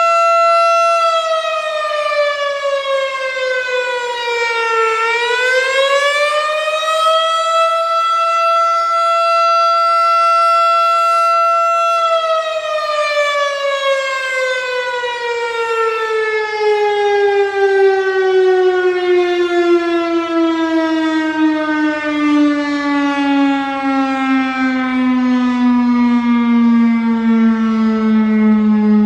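Federal Signal STH-10 three-phase chopper siren sounding a single-tone attack signal. Its steady tone dips and climbs back once about five seconds in, holds, then falls steadily in pitch from about twelve seconds on as the siren winds down.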